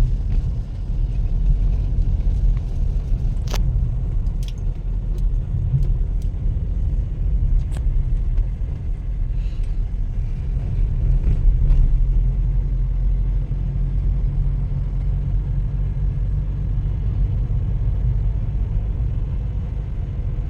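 Steady low rumble of road traffic and vehicle engines, with a few sharp clicks in the first several seconds.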